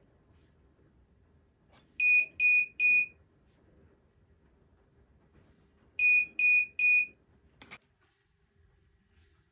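Piezo buzzer on an Arduino RFID door lock sounding three short beeps at one pitch, then three more about three seconds later. A single sharp click follows shortly after the second set.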